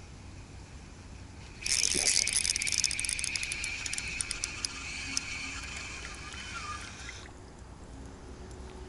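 Ultralight spinning reel being cranked to retrieve a spinner: a rattling whirr with many fine clicks that starts suddenly about two seconds in and stops suddenly some five seconds later.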